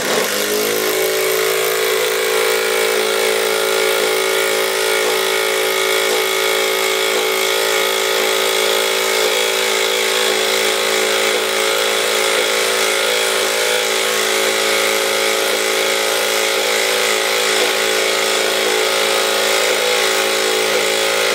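Cordless 12-volt DeWalt impact driver hammering steadily without pause as it struggles to drive a large screw into a 4x4, then cutting off at the end; the screw head strips out and the driver can no longer turn it.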